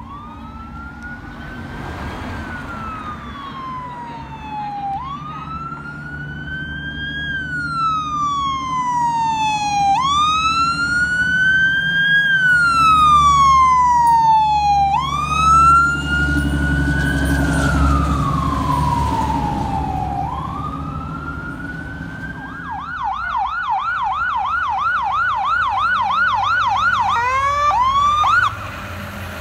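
Fire truck siren on a slow wail, each cycle rising and falling over about five seconds, with a truck engine rumbling loudest midway as the apparatus comes close. About three-quarters of the way in, the siren switches to a fast yelp of about three cycles a second, then cuts off abruptly near the end.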